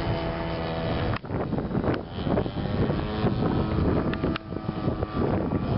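DLE55 single-cylinder two-stroke petrol engine of an RC aerobatic airplane droning steadily in flight, on a tune the owner judges healthy. After about a second, wind buffeting the microphone mostly covers the engine, which goes on faintly underneath.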